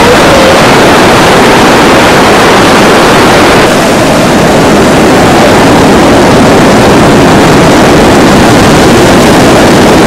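Loud, steady rushing roar of beach wind and surf, near full scale on the camcorder microphone, with a brief dip at an edit cut a little under four seconds in.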